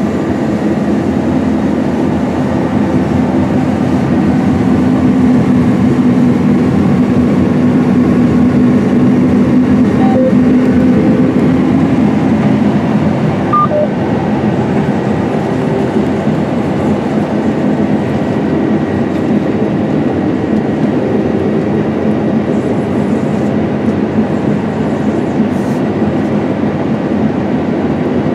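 Steady drone of a 473-hp John Deere S780 combine working in wheat, heard inside the cab: the engine, threshing system and HD40R draper header running together. The machine runs at an even load throughout.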